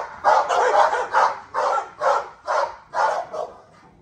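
A dog barking over and over, two to three barks a second, stopping shortly before the end.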